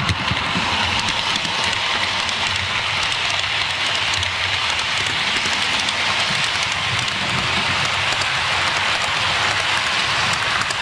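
Model BR blue Class 43 HST set running fast past on the layout: a steady rushing rattle of its wheels on the track and its motor.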